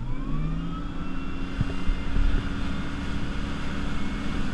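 2014 Ski Nautique G23's ZR550 inboard engine accelerating the boat hard from low speed under a heavy load of full ballast and seven adults: the pitch climbs quickly in the first second, then holds steady over rushing water and wind.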